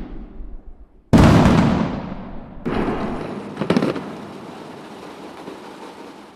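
AI-generated explosion or firework sound effect: a loud bang about a second in, then a second bang and a sharp crack a couple of seconds later, all trailing off in a long, fading rumble.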